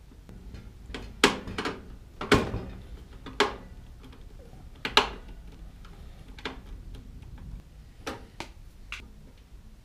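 Pliers and a screwdriver clicking and knocking against wires and the sheet-steel wiring box of an electric heater. About nine sharp, irregular clicks and taps are heard, the loudest a little after one second and at about two and a half seconds.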